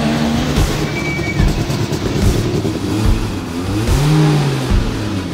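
Rally car engine revving, its pitch rising and falling, with one clear rev up and back down about four seconds in.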